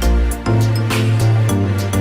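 Electronic background music with a steady beat, about two drum hits a second over a deep bass line.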